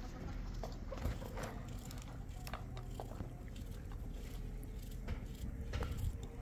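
Knife cutting through an onion held in the hand, making irregular crisp clicks and small taps as pieces drop onto a metal plate.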